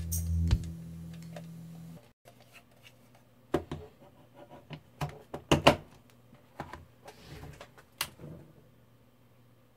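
Background guitar music ends in the first second. Then comes a series of sharp plastic clicks and snaps as the two halves of a Fritz!WLAN Repeater 300e's plastic housing are pressed together to close it. A last knock about eight seconds in comes as it is plugged into a wall socket.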